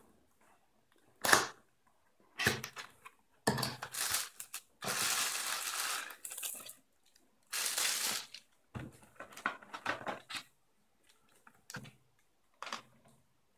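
A cardboard box being opened by hand and its contents lifted out in a plastic bag: a sharp snap of the cardboard flap about a second in, then bursts of cardboard scraping and plastic crinkling.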